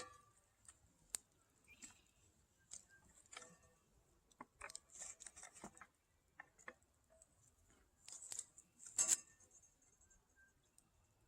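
Faint, scattered clicks and light knocks of stones being shifted and wedged under a cast iron pan to level it over a rock fire pit. There are denser clusters about five seconds and about nine seconds in.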